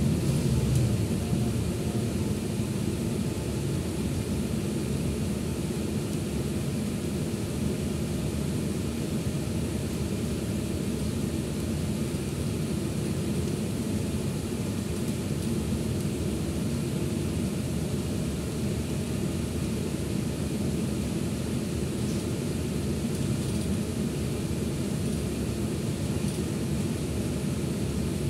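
Scania Citywide LE Euro 6 city bus under way, heard from inside the passenger cabin: a steady low drone of engine and road noise.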